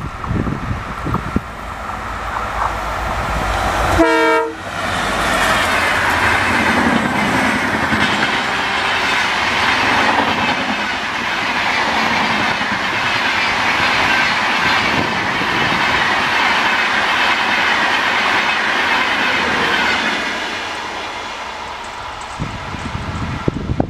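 WDP-4D diesel locomotive's engine rumbling as it approaches at speed, with a short horn note as it passes about four seconds in. The long rake of passenger coaches follows, rushing past with steady wheel-and-rail noise that fades as the train recedes near the end.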